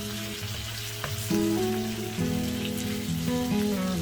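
Chicken pieces sizzling as they fry in a pan, a steady crackling hiss, with background music of held notes underneath.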